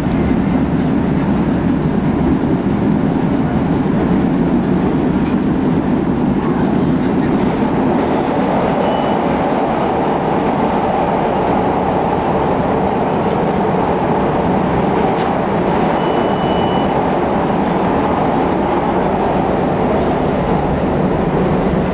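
CTA Blue Line rapid-transit train running at speed, heard from inside the passenger car: a loud, steady rumble of wheels and running gear. A brief thin high squeal comes twice, once shortly and once for about a second.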